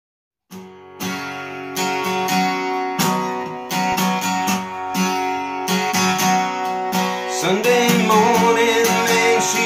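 Steel-string acoustic guitar strummed in steady chords as a song's intro, starting about half a second in. A man's singing voice comes in over the guitar near the end.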